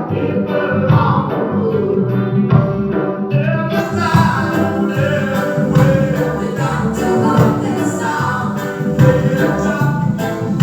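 Reggae song: singing voices over a steady beat, with brighter high-end sounds coming in about four seconds in.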